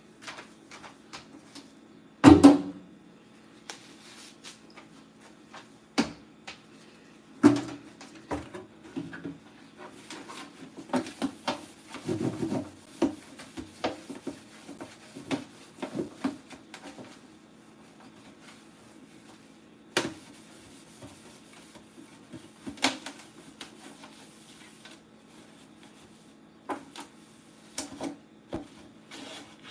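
Containers and shelves being handled and wiped while a fridge is cleaned: scattered knocks and clatter, with a busy stretch of rubbing and scrubbing in the middle. There is a louder thump about two seconds in and another about seven seconds in, over a steady low hum.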